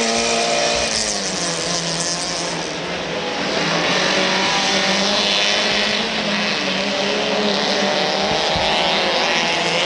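Engines of several autocross race cars running at high revs on a dirt circuit, their pitch shifting up and down as they go through the turns.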